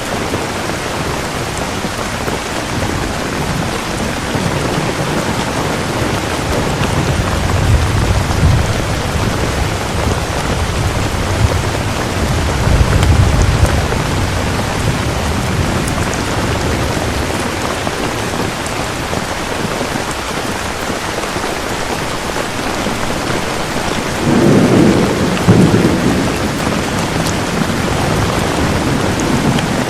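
Steady rain falling, with low rolls of thunder rumbling in three times, the loudest near the end.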